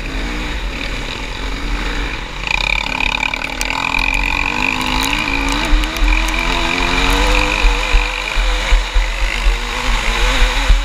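ATV engine running at speed, its pitch wavering up and down as the throttle changes, under heavy wind buffeting on the microphone. Sharp knocks stand out in the second half.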